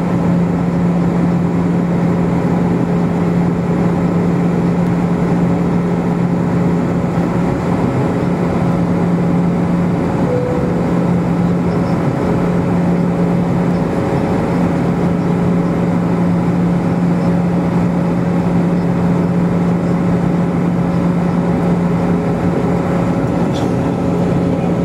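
Steady drone of an Airbus airliner in flight, heard inside the passenger cabin: the rush of jet engines and airflow with a steady low hum, unchanging throughout.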